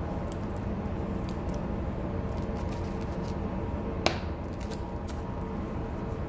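Steady low machinery hum aboard a cargo ship, with a single sharp metallic clink about four seconds in.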